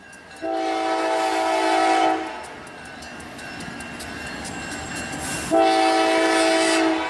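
Norfolk Southern Dash 9-40CW diesel locomotive blowing its air horn: two long chords, one starting just after the start and one about five and a half seconds in. Between the blasts the train rumbles and its wheels click over the rail joints.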